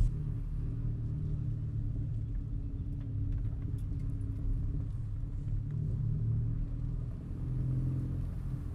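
Audi A3 2.0 TFSI's turbocharged four-cylinder engine, with a 2.5-inch exhaust, running steadily at low revs with a deep exhaust rumble.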